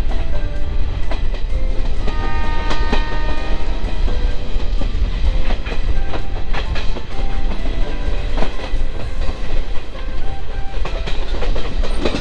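Passenger train running, heard from an open coach doorway: wheels clattering over rail joints above a heavy rumble and wind on the microphone. About two seconds in, a train horn sounds for over a second.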